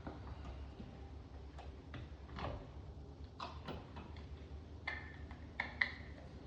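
Irregular light clicks and taps of hands working a wall sconce and its metal hardware. Two sharper metal clinks that ring briefly come near the end.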